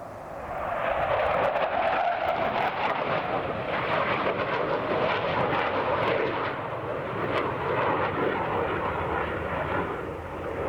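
Panavia Tornado IDS twin RB199 turbofan jet passing overhead at an air display. Its jet noise swells about a second in and stays loud, easing slightly near the end.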